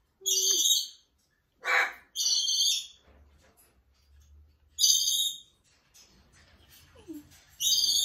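Pet macaws squawking close up: about five loud, harsh calls of half a second or so, a pair near the start, one about five seconds in and one near the end.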